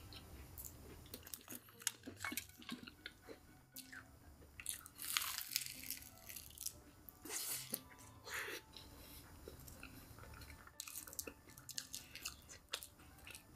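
Chewing and crunching of KFC crispy fried chicken (crousties): a steady run of small wet mouth clicks and crackles, with two louder crunching bites about five and seven and a half seconds in.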